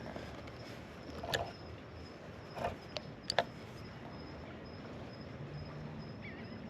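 Night insects, crickets by the sound, keep up a steady high trill. Four short sharp sounds cut through it in the first half, the last one the loudest.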